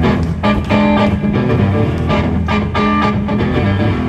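Live blues band playing the instrumental opening of a song, led by guitar, with a steady beat of picked notes.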